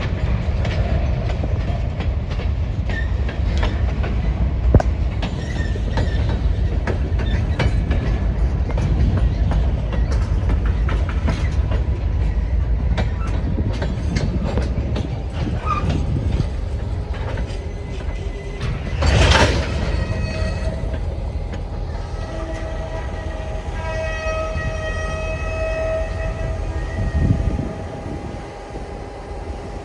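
Freight train cars rolling slowly, with a steady low rumble and frequent sharp clicks and clanks from wheels and couplers. About two-thirds through comes a brief loud rushing burst. Near the end a steady high tone sounds for a few seconds.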